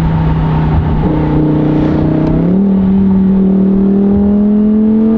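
Lamborghini Huracan EVO's 5.2-litre naturally aspirated V10 with a titanium Akrapovic exhaust, running loud and steady at low revs. About two and a half seconds in its note steps up and then climbs slowly as the car pulls harder.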